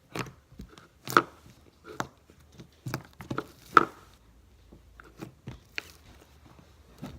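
Homemade slime squished and pulled in the hands: irregular sticky clicks and pops, several a second.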